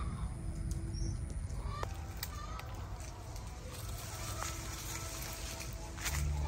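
Quiet outdoor garden ambience: a steady low rumble with a few faint clicks and a brief faint chirp, and background music coming back in near the end.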